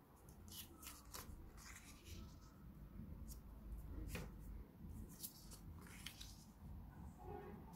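Faint rustling and crinkling of paper pattern pieces as they are pressed flat by hand and picked up, in scattered short crackles.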